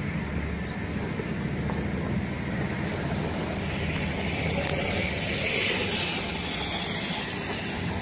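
Car engine running steadily, with a hissing rush that swells about four seconds in and fades near the end.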